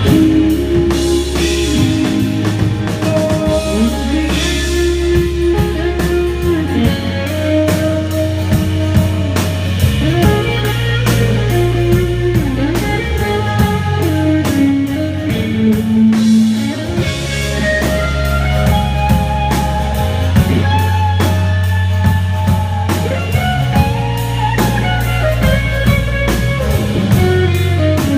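A rock band playing an instrumental break between sung lines: a guitar melody over a bass line and a steady drum-kit beat, with no vocals.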